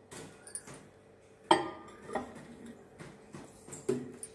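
A glass bowl knocking and clinking as it is set down on the glass turntable inside a microwave oven: one sharp knock about a second and a half in, then a few lighter clicks, over a faint steady hum.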